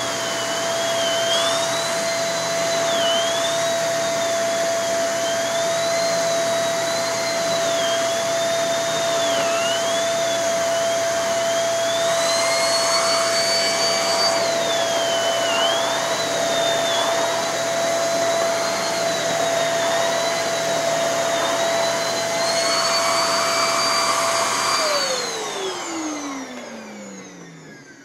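Shark Navigator NV22 upright vacuum running through its hose with an air-driven turbo brush tool: a steady motor whine under a higher whine that rises and dips as the turbo tool is worked over upholstery and carpet, the brush still spinning on both. About three seconds before the end the vacuum is switched off and its whine falls away as the motor spins down.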